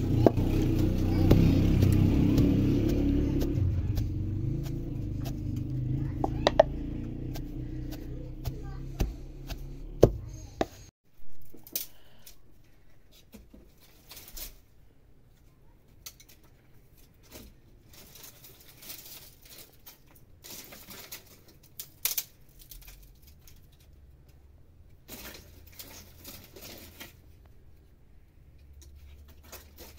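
A wooden pestle pounding in a stone mortar over a low rumble, with a few sharp knocks. About eleven seconds in it cuts off, and dry branches and twigs crackle and snap in scattered bursts as firewood is pulled from a pile.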